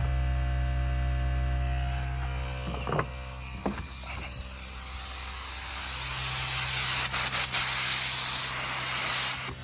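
Rivian R1T's built-in electric air compressor running with a steady buzzing hum. A hiss of air grows louder in the second half.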